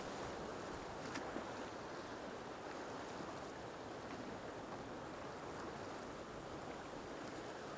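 Small waves breaking and washing in the shallow surf, a steady rush of water.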